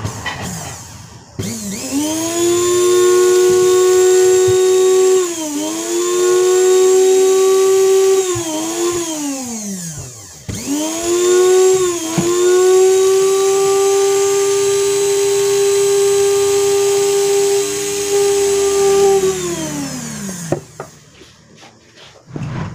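The bare electric motor of a Viaris blender runs twice on the bench, each time spinning up to a steady high whine and then winding down. The first run sags in pitch twice before it stops. It is being test-run after its shaft was sanded and oiled to cure stiff, hard turning.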